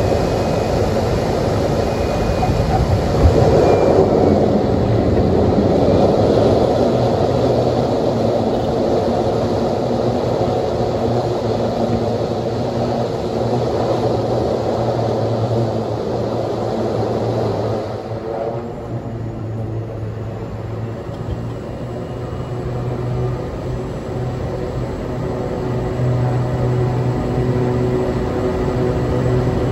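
Single-engine propeller aircraft heard from the cockpit, its engine and propeller giving a steady drone with rushing noise as it rolls along the runway. About eighteen seconds in the noise eases, leaving mainly a low steady hum, then slowly builds again near the end.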